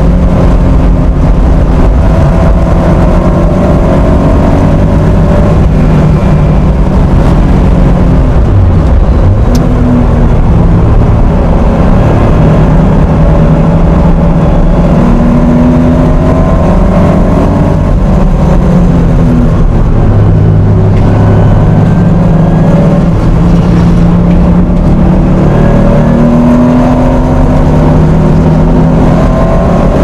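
1980 Porsche 911 SC's 3.0-litre air-cooled flat-six under full racing load, its pitch climbing again and again as it is driven hard through the gears. Very loud, with road and wind noise beneath it.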